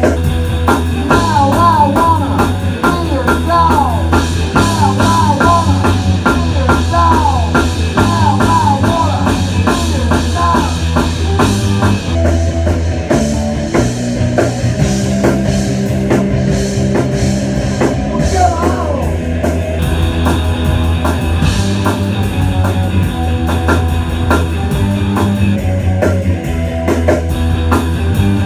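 A rock band playing live and loud in a rehearsal room: distorted electric guitars over a steady drum beat, with bending guitar notes early on and the song moving into a different section about twelve seconds in.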